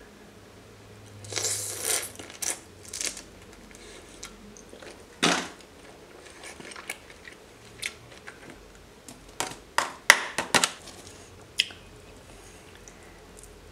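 Scattered handling sounds of a glass bowl of sauce and raw seafood being moved about: a rustling burst about a second in, a few single knocks, and a quick run of sharp clicks and taps about ten seconds in.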